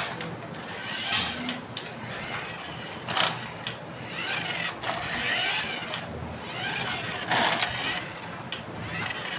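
Toy remote-control car running, its small electric motor and wheels whirring in several swelling bursts, with a few sharp clicks and scrapes.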